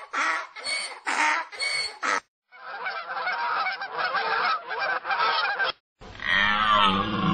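Recorded animal cries in quick succession: about six short honking calls in the first two seconds, then about three seconds of dense, continuous chattering, then near the end a different, longer call that starts high and falls in pitch.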